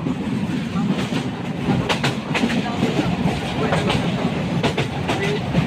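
Passenger train running at speed, heard from on board: a steady rumble of the carriage with sharp clacks of the wheels over the rail joints, several a second.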